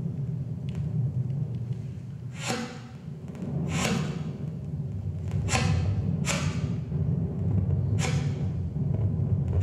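Free improvisation for soprano saxophone and live electronics: a low, steady drone runs underneath while the saxophone makes short, breathy, noisy attacks, about five of them, each fading quickly.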